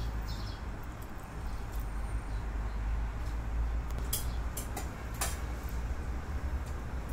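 Steady low rumble of city background noise, with a few short, sharp chirps from Eurasian tree sparrows about four to five seconds in.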